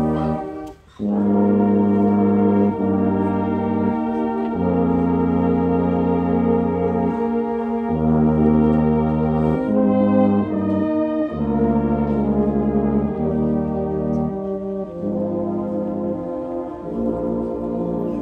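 Brass band playing a slow piece in sustained chords, the notes changing every second or two, with a short break between phrases about a second in.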